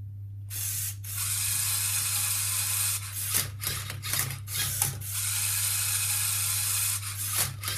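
Lego Mindstorms EV3 MindCub3r robot's motors and plastic gears running as it starts scanning a Rubik's cube, a steady whir from about half a second in, with several clacks as the arm tips the cube and the turntable turns.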